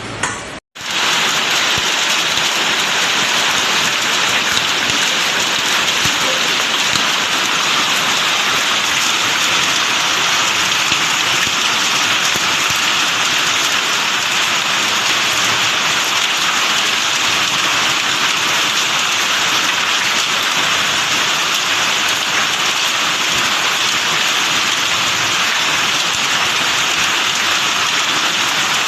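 Heavy rain pouring down steadily in a loud, even hiss, during a storm with hail and strong wind. The sound cuts out for an instant just after the start, at an edit.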